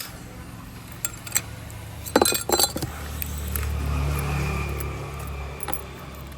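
Small hard objects clink together several times in quick succession about two seconds in, followed by a low steady hum that swells and then fades.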